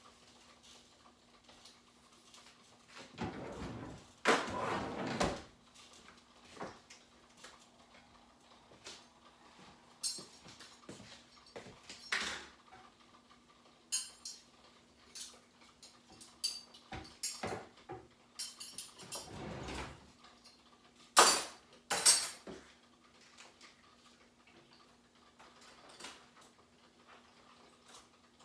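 Kitchen clatter of dishes and utensils being handled at a counter: scattered clinks and knocks, with two sharp, loud knocks close together about three-quarters of the way through. A couple of longer noisy stretches, one about four seconds in, and a faint steady hum run underneath.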